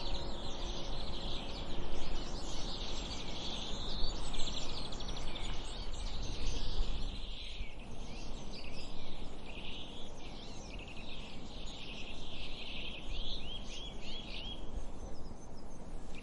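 Many small songbirds chirping and twittering over a steady low background hum of outdoor noise, with the last ring of a bell fading out in the first second.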